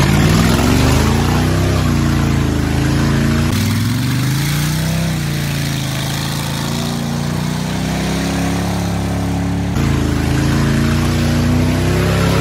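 Pickup truck engine with its catalytic converters cut off, revving up and down as the truck drives through mud, its pitch rising and falling. The sound changes abruptly twice, about three and a half and ten seconds in.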